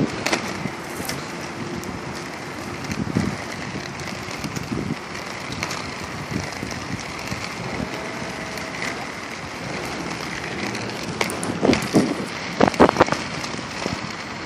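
Steady downtown street noise from traffic, picked up on a phone's microphone while walking, with a few short louder sounds near the end.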